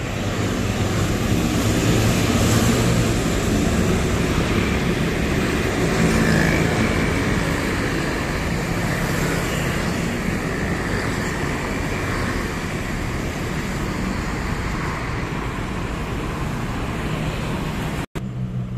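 Road traffic passing on a city street: a steady wash of car and motorcycle engines and tyre noise, cutting out for an instant near the end.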